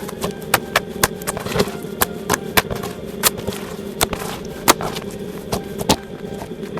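Slime being squeezed and pressed by hand, giving irregular sharp pops and clicks, several a second, as trapped air pockets burst.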